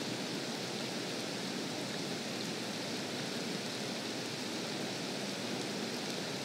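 Steady rain falling on a lake and grass: an even hiss.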